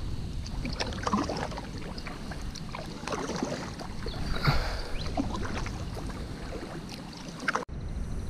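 A canoe being paddled: paddle strokes splashing in the water, with scattered short knocks against the hull. The sound breaks off abruptly near the end.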